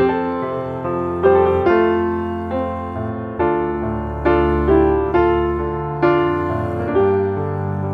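Background piano music: a slow melody of struck notes, each starting sharply and fading.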